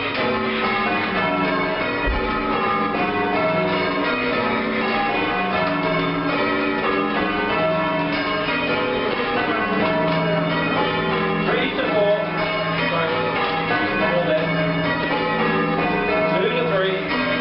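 A ring of church tower bells rung full circle, one bell after another in a continuous run of overlapping strikes, each note ringing on into the next.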